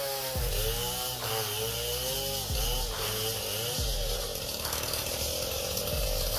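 Chainsaw running through a cut, its engine pitch rising and falling several times over the first few seconds, then running more steadily.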